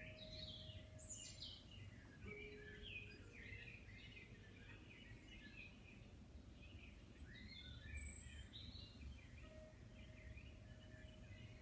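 Faint background relaxation music of birds chirping over a few long, soft held notes.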